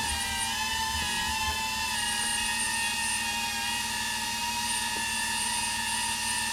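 Electric vehicle winch motor running with a steady whine, winding in the rope.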